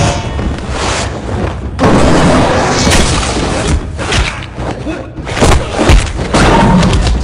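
Kung fu film fight soundtrack: a rapid series of heavy thuds and booming blows, with a man's shout and music underneath.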